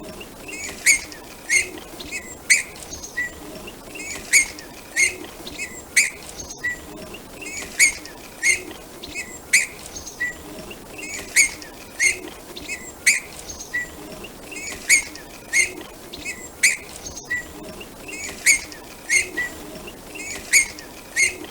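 Small songbird giving short, sharp chirps in quick runs of several, with brief pauses between the runs.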